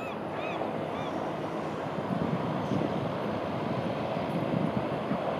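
Twin-engine floatplane on its landing approach: a steady rush of engine and propeller noise that grows louder from about two seconds in as it comes closer.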